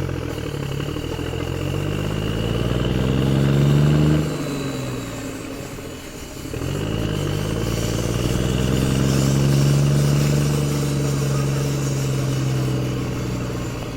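An engine running, its pitch rising and falling as it is revved up and down. It eases off about four seconds in, dips lowest around six seconds, then picks up again and holds.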